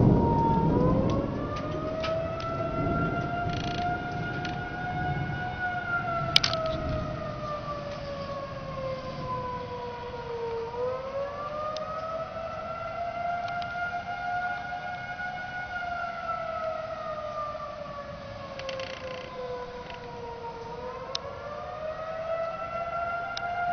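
Outdoor tornado warning siren wailing: its pitch rises quickly, holds for a few seconds, then slides slowly down, and this repeats about every ten seconds. A low rumble fades away in the first couple of seconds, and a sharp click comes about six seconds in.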